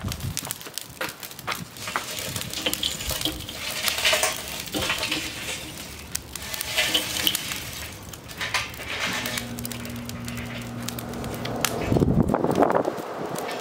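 Lit lump hardwood charcoal clattering and crackling as it is poured and shaken out of a metal chimney starter into the bowl of a Weber kettle grill, with many sharp clinks of lumps against metal. A low steady hum joins in past the middle, and a brief louder rush of low noise comes near the end.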